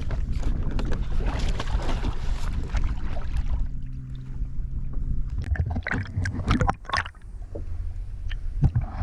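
Water sloshing around a kayak at sea, with wind buffeting the microphone, while a tope shark is handled and let go over the side. A cluster of sharp splashes and knocks comes between about five and a half and seven seconds in, with a couple more near the end.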